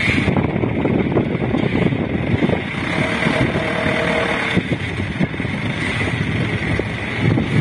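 Diesel engine of a light dump truck heavily loaded with sand, running under load as the truck moves slowly over dirt, with wind noise on the microphone.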